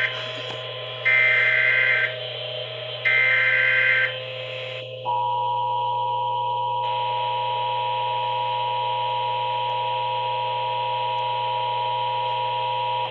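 Emergency Alert System header: short bursts of fast warbling data tone, each about a second long, then from about five seconds in the steady two-tone EAS attention signal. The sequence introduces a flood alert.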